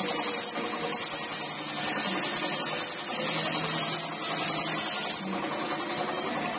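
Airbrush spraying paint onto a motorcycle fuel tank: a loud, steady high air hiss that cuts out briefly about half a second in, resumes, and stops suddenly about five seconds in. A lower, steady machine running noise continues underneath.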